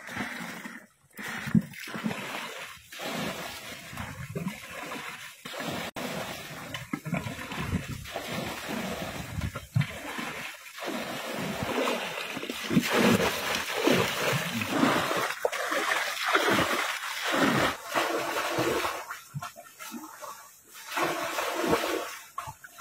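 Water splashing and pouring as plastic buckets are dipped into a shallow pond and emptied out, one after another in uneven surges: the pond is being bailed dry by hand.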